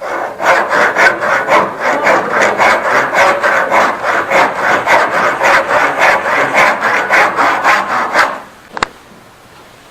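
Handsaw cutting through wood with quick, even back-and-forth strokes, about four a second, that stop about eight seconds in, followed by a single sharp click.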